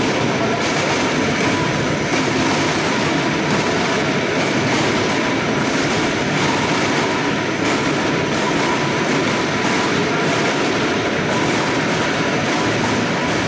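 Apple processing machinery running: the conveyor elevator, washer and drum machines of a fruit-juice line make a steady, loud mechanical clatter with a faint steady hum.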